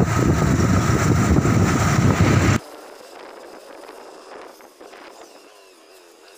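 Motorcycle riding noise, engine and wind buffeting the microphone. It cuts off abruptly about two and a half seconds in, leaving a much quieter outdoor background.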